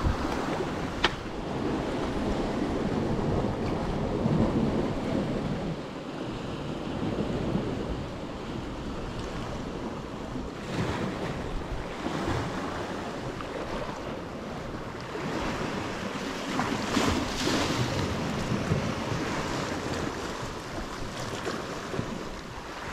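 Sea waves washing against a rocky shoreline, with wind buffeting the microphone; the wash swells and eases a couple of times. A single sharp click about a second in.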